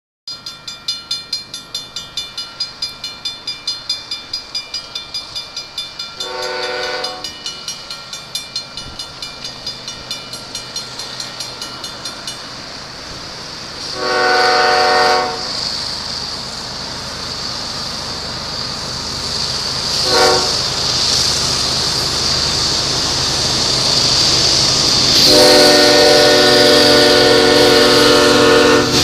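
Railroad crossing bell ringing about three strokes a second while an approaching Canadian Pacific freight locomotive sounds its multi-note horn in the grade-crossing pattern: long, long, short, then a long final blast. The rumble and hiss of the train grow louder as it nears the crossing.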